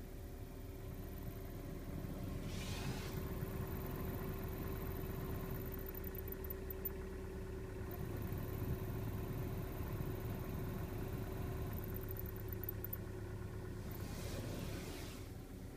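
Car heater blower fan running with a steady whistling tone over a low rumble; the whistle is the fault being shown. The tone fades out near the end, with a short rush of air.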